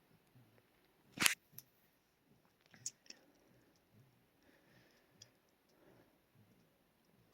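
Sleeping puppy snoring softly, short low snores about twice a second. A sharp click about a second in, the loudest sound, and a smaller click near three seconds.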